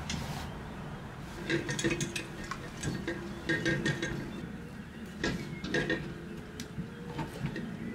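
Metal rattling and clinking from a chest freezer being wheeled on a hand truck over bumpy lawn, in irregular bursts of clatter with short ringing notes.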